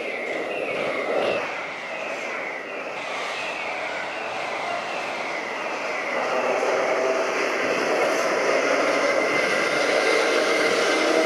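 Vintage two-axle Lisbon tram (Carris Remodelado, rebuilt with new trucks and electrical equipment) approaching along street rails, its running noise and steady motor and wheel tones growing louder through the second half. In the first half a high falling chirp repeats about every half second.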